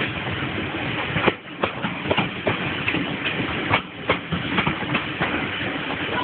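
Train running along the track, heard from a carriage window: a steady rumble and rush with irregular clanks and rattles from the wheels and coach.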